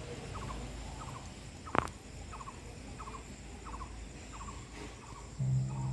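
Rhythmic chirping of a small calling animal: short pulsed chirps repeating about twice a second. A single sharp click comes about two seconds in, and a steady low hum starts near the end.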